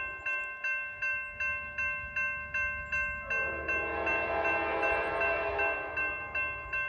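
Grade-crossing bell ringing about twice a second. Halfway through, the Amtrak Cascades train's horn sounds one long chord of about three seconds over the bell.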